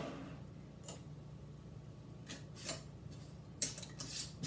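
Glass canning jars being handled and set down while a pressure canner is loaded. Several short glassy clinks and knocks, the loudest a little after three and a half seconds in, over a faint steady low hum.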